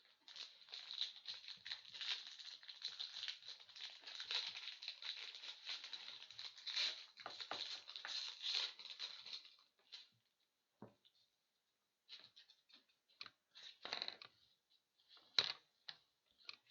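Plastic wrapper crinkling and tearing as trading-card packaging is opened, a dense crackle for about ten seconds, followed by scattered clicks and rustles of cards being handled.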